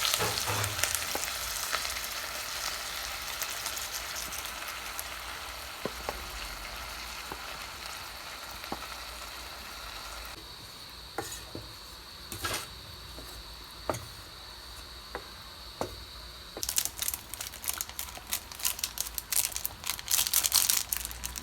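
Food sizzling and frying in a rice cooker's inner pot, the sizzle fading over the first half. It is stirred, with scattered clicks and scrapes that turn dense and busy near the end.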